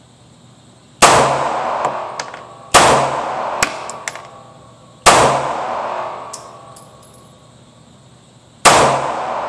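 Kel-Tec PF9 9mm pistol firing four single shots at uneven intervals, each report echoing and dying away in an indoor range. A few light metallic ticks fall between the shots.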